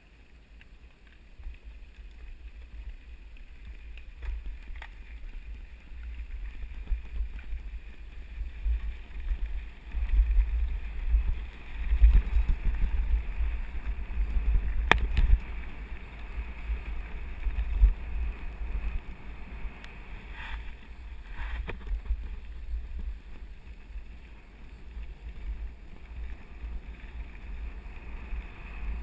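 Wind buffeting the microphone as a mountain bike rolls down a dirt forest road, a gusty low rumble that grows louder as the bike picks up speed, with the tyres and bike rattling over the gravel and a few sharp clicks from bumps.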